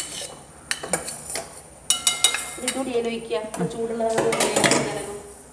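Metal spoons clinking and scraping against a steel saucepan and a brass uruli during stirring, with a few sharp clinks and a cluster of ringing metal strikes about two seconds in.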